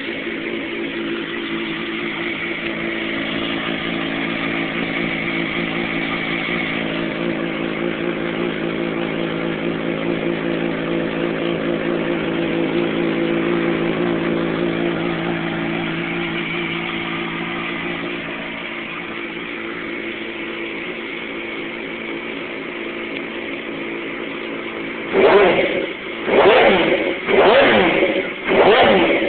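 2007 Yamaha R6's inline-four engine running through a full Leo Vince SBK exhaust with a shortened canister, idling steadily and settling slightly lower about 18 seconds in. Near the end it is revved in several quick throttle blips, about one a second.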